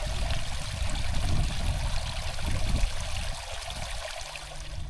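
Water running and trickling in an outdoor bath tub, with a steady low rumble underneath.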